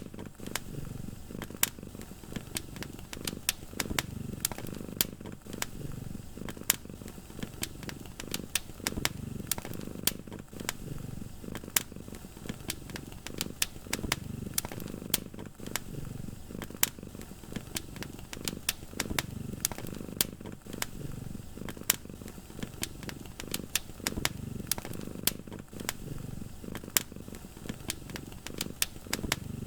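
Wood fire crackling in a fireplace, with frequent sharp pops, over a cat's low purring that swells and fades in slow waves.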